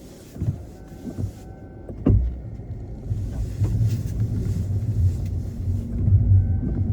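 Car on the move, a steady low road rumble that grows louder after a sharp knock about two seconds in, with a short electric-motor whine about a second in and again near the end.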